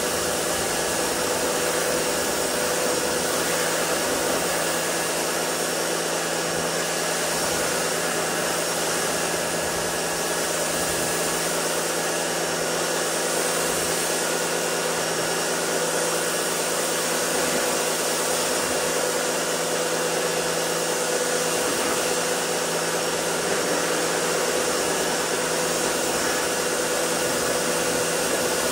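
Pressure washer spraying water onto a truck's body: a loud, steady hiss of the jet with a faint steady hum underneath.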